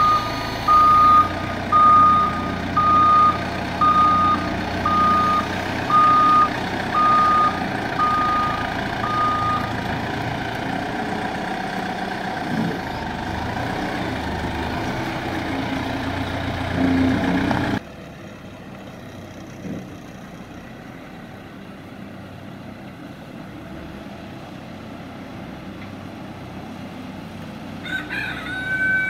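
Caterpillar TH62 telehandler's diesel engine running while its reversing alarm beeps about once a second, roughly ten beeps; the engine sound drops away suddenly a little over halfway through, leaving a quieter background, and a rooster crows near the end.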